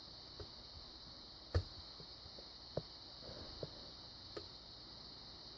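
Faint, scattered clicks and ticks of a lock pick and tension wrench working the pins of a padlock during single-pin picking, with a sharper click about a second and a half in and another near three seconds.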